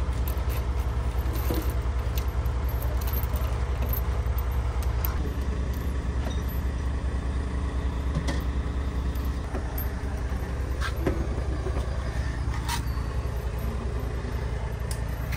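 A large diesel engine of heavy machinery running steadily with a low, even throb. Scattered light metallic clinks of steel bolts being handled come through over it.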